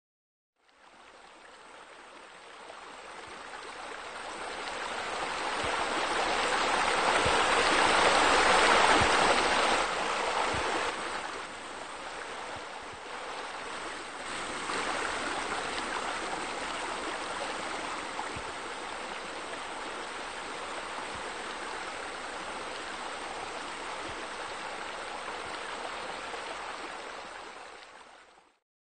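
Flowing, splashing water of a pool's rock waterfall and arcing deck jets. It fades in, swells to its loudest about a third of the way through, drops back sharply a little later, then runs steadily until it fades out near the end.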